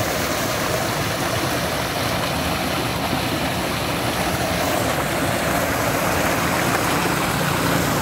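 A heavy stream of water gushing from a tube-well outlet pipe into a concrete tank and spilling out through three outlets: a steady rush with a low rumble underneath.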